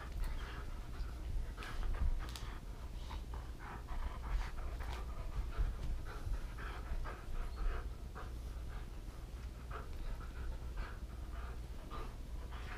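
A dog panting in short, irregular breaths, out of breath from tugging at a toy.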